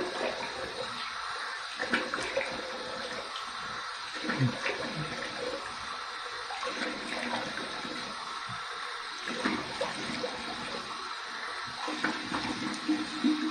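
Water running from a bathroom sink tap, with irregular splashes as a face is rinsed by hand: the warm-water rinse after a wet shave.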